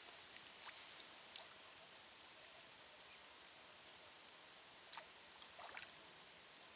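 Near silence: faint outdoor background hiss, with a few soft clicks and rustles.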